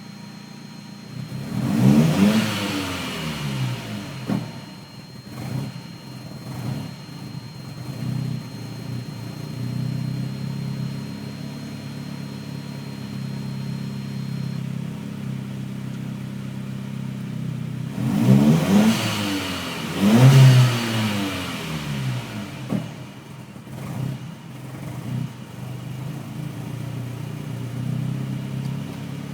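Audi A4 B5 1.8-litre turbocharged four-cylinder, fitted with a GTRS turbo kit, 630cc injectors and a Eurodyne tune, idling roughly with an uneven, wavering note. The throttle is blipped about two seconds in and twice more about two-thirds of the way through, the revs rising and falling back each time. The rough idle is a fault whose cause the owner does not know.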